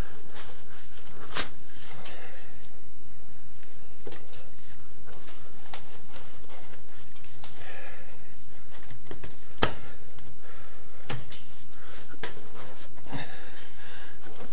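Grey plastic sewer pipe and its fitting being worked into place by hand, with several sharp plastic clicks and knocks, the loudest about ten seconds in. Close breathing can be heard between the clicks.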